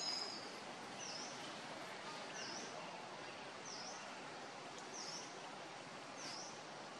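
A bird repeats a short, high chirp that dips and rises again, five times at even spacing, over a steady background hiss.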